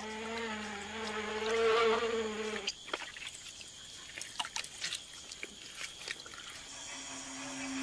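Steady insect buzz, cutting off sharply a little under three seconds in, followed by a quieter high insect tone with scattered clicks.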